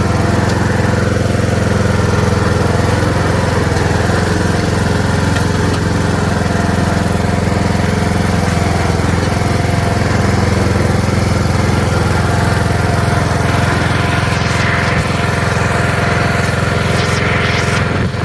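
Riding lawn mower engine running steadily at a constant speed while the mower is driven along, with some added higher hiss in the last few seconds.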